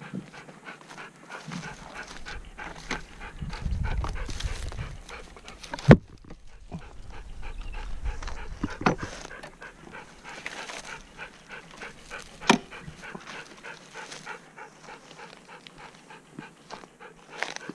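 Kelpie panting close by, with a few sharp knocks and clatters. The loudest knock comes about six seconds in.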